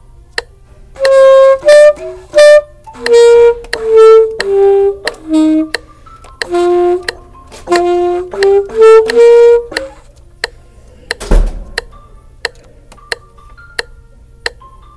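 Saxophone playing a slow melody of held notes, which stops about ten seconds in. After that only faint, short sounds remain, with one loud thump a little after the melody ends.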